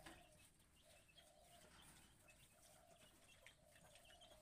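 Near silence, with faint farmyard animal sounds in the background.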